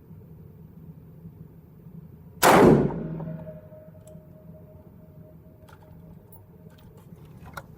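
A single rifle shot from a Black Rain Ordnance Fallout 15 AR-15 in 5.56/.223, about two and a half seconds in, with a tail that dies away over about a second.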